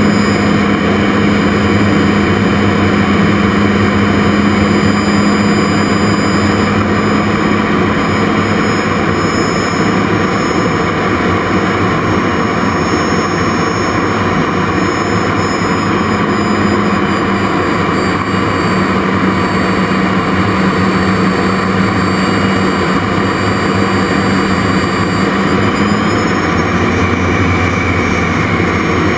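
Jet Provost Mk5's Viper turbojet and the airflow heard from inside the cockpit in aerobatic flight: a loud, steady roar with a low hum and high whines that drift slowly in pitch.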